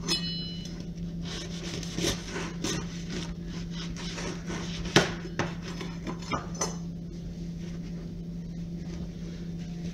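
Kitchen knife sawing through the crisp crust of a freshly baked homemade loaf, crackling irregularly for about seven seconds, with one sharper knock about five seconds in. A steady low hum runs underneath.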